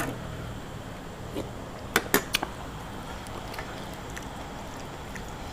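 A few sharp clicks, three close together about two seconds in, over a low steady hum.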